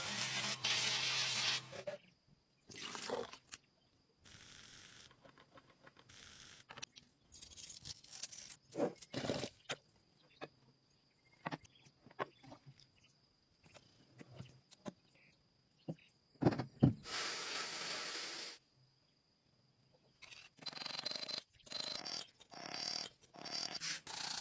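Intermittent hand work on a metal part, in bursts of scraping and rubbing a second or two long, with scattered knocks and clicks between them.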